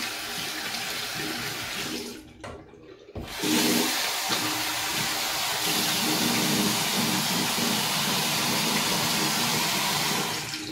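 Bathroom sink tap running with splashing as hands and face are rinsed under the water. The flow drops away about two seconds in, then runs strongly again for the rest of the time.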